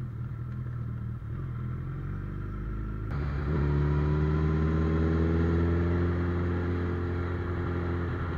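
Suzuki Hayabusa's inline-four engine heard from the rider's seat, running low at first. After a sudden change about three seconds in, it is louder, its pitch rising steadily as the bike accelerates and then holding, with wind and road noise.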